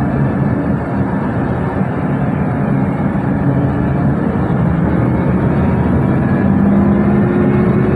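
Steady engine and road noise of a moving Transjakarta bus, with a slight rise in engine pitch near the end.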